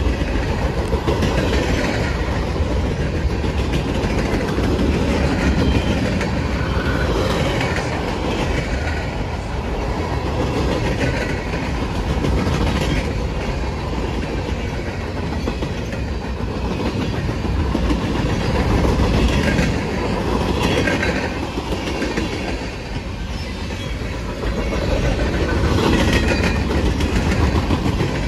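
Freight cars of a CSX manifest train rolling steadily past, a continuous rumble with the steel wheels clacking over the rails.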